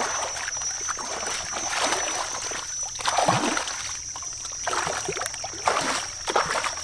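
Water splashing and sloshing in irregular bursts, over a steady high-pitched whine.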